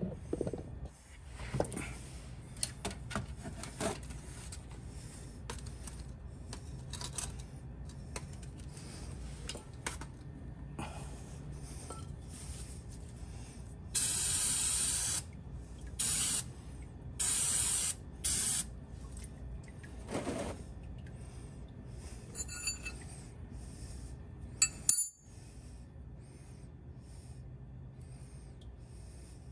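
Aerosol brake cleaner sprayed in four short hissing bursts around the drain hole of the oil pan, each a second or less, about halfway through. Near the end there are two sharp clicks.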